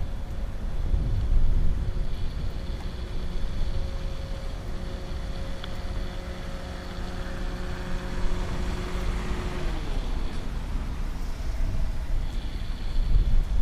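A nearby vehicle engine running with a steady hum, which drops in pitch and fades about two-thirds of the way through, over a constant low rumble.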